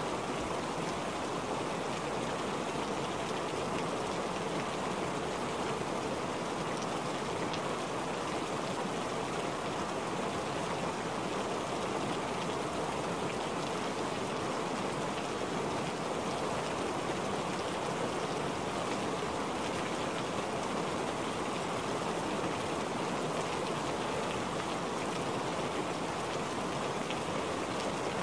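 Rain falling steadily on a wet, puddled surface: an even, unbroken wash of sound that neither swells nor fades.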